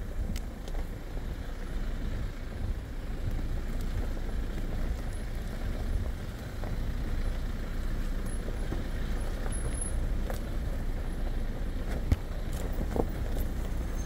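Four-wheel drive moving slowly over a rough dirt track: a steady low rumble of engine and tyres, with scattered knocks and rattles as it rolls over the ground, one sharp knock about twelve seconds in.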